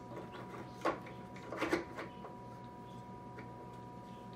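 Hard plastic clicks and knocks as the incubator's fan-and-motor housing is handled and seated in its plastic cover: one knock about a second in, then a quick cluster of clicks just after. A steady faint hum runs underneath.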